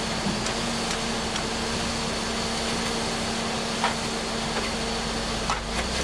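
Heavy machine engine running steadily, with a few light knocks and clanks over it.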